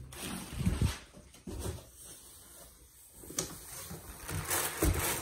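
Packing being handled in a cardboard shipping box: a few dull knocks, then plastic wrapping crinkling and rustling in the last second or so as a wrapped exhaust pipe is shifted in the box.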